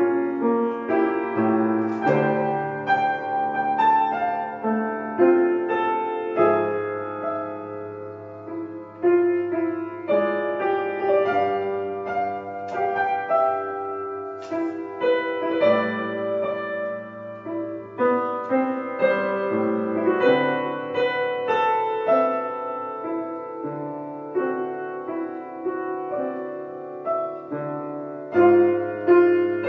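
Solo piano music: a slow, gentle melody over sustained chords.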